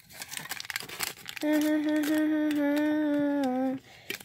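Aluminium foil crinkling in the hands for about the first second. Then a girl hums one long held note, steady in pitch, which dips slightly just before it stops.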